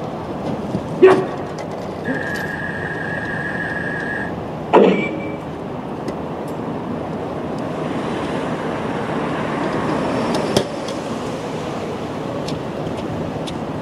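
Steady traffic hum, with two sharp loud clacks, one about a second in and one near five seconds, and a steady electronic beep lasting about two seconds between them. Later a passing vehicle's noise swells and fades.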